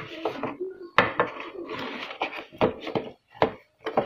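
Cardboard packaging being handled and set aside on a desk: rustling and scraping with several sharp knocks as the box pieces are put down.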